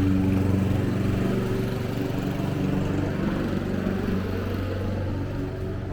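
A motor engine running steadily at a low, even pitch.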